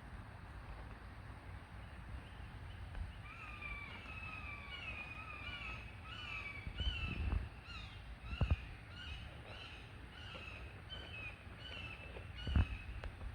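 A bird calling in a long series of short repeated notes, about two a second, starting about three seconds in. A few low thumps come through as well, the loudest near the end.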